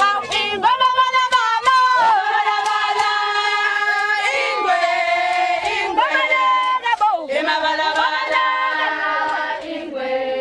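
A group of Zulu women and girls singing a ceremonial song together, with long held notes.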